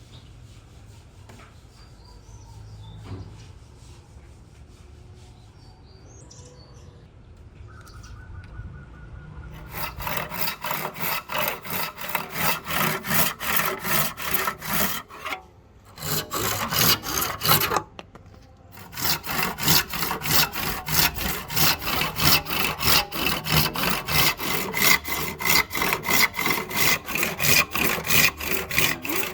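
Hand saw cutting through wood in steady back-and-forth strokes, about three a second. It starts about a third of the way in and stops twice briefly.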